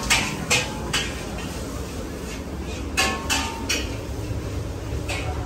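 Sharp clinks and clatter of crockery and cutlery, in two quick runs of about three just after the start and about three seconds in, and once more near the end, over a steady low background rumble.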